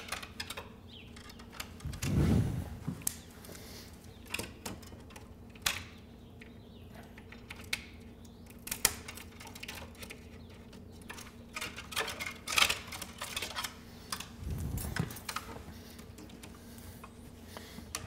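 Wire being twisted and worked with pliers around a moose skull mount: irregular small clicks, ticks and scrapes of metal on metal and bone. Two dull low thumps come in, about two seconds in and again near fifteen seconds.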